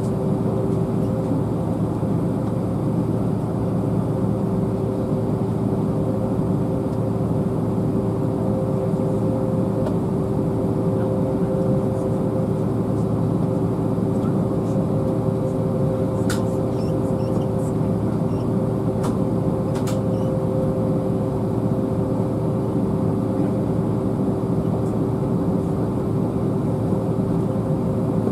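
Steady airliner cabin noise while taxiing, with the jet engines at idle. It is a constant low rumble with two steady humming tones over it.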